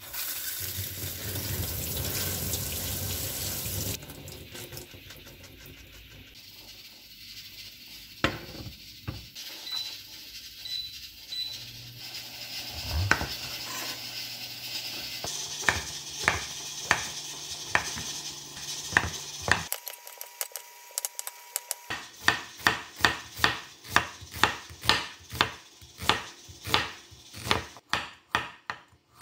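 Water running into a stainless steel sink over bean sprouts in a mesh colander for the first few seconds. Then a chef's knife cutting on a wooden cutting board: a few separate cuts through a king oyster mushroom, then quick, even slicing of a carrot at about two strokes a second.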